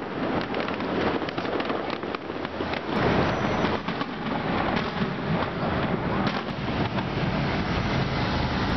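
Fireworks crackling and popping in a rapid, irregular series over steady city street noise. The background changes abruptly about three seconds in.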